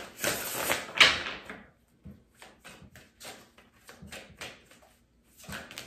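A deck of tarot cards being shuffled by hand, a papery rush for the first second and a half. Then comes a string of soft flicks and taps as single cards are pulled from the deck.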